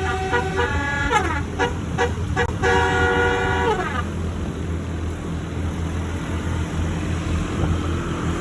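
A bus's basuri multi-tone air horn (a 'telolet' horn) playing a tune in held chords, the pitch sagging downward at the end of each phrase; it stops about four seconds in, leaving steady engine and road rumble.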